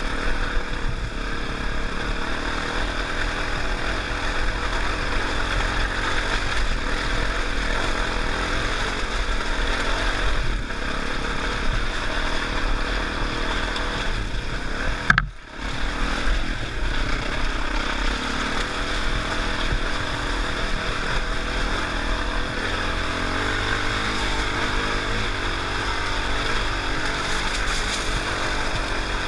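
Dirt bike engine running steadily as the bike is ridden over a rough stony track, heard from the rider's helmet camera. About halfway through a sharp knock is followed by a brief drop in sound.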